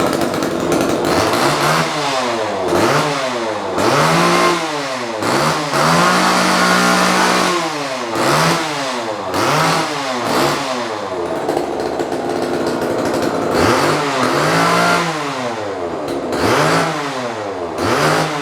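Vintage Homelite XL two-stroke chainsaw running and being revved in repeated throttle blips: the pitch rises and falls about once a second, with one longer held rev a few seconds in. This is its first run in more than ten years, on new fuel and oil lines.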